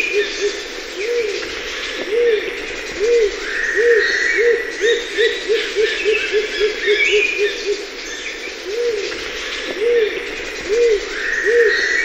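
Rose-crowned fruit dove calling: a series of low hooting notes that start slow and speed up into a rapid run, twice over. Other birds sing more faintly and higher above it.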